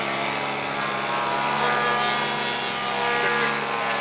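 Radio-controlled aerobatic airplane's engine and propeller running steadily at high power while the plane hovers nose-up in a prop hang. The pitch wavers slightly up and down as the throttle is worked.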